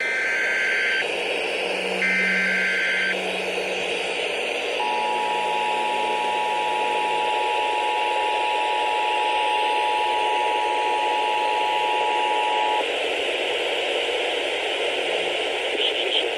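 Emergency Alert System tones over a hissy radio signal: two one-second bursts of warbling SAME header data tones, then the two-tone attention signal (853 and 960 Hz together) held steady for about eight seconds, the signal that an emergency alert message follows.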